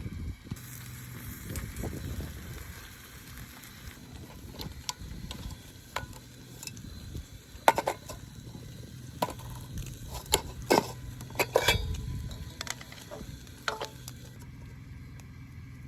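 Food sizzling in a frying pan, with a utensil clicking and scraping against the pan several times in the second half. The sizzle fades shortly before the end.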